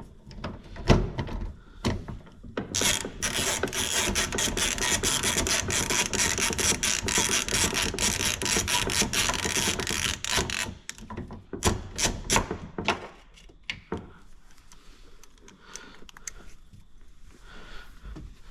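Ratchet wrench with a 10mm socket clicking rapidly as it backs a door-handle bolt out of a Nissan 370Z door, followed by a few separate clicks and a short stretch of quieter handling.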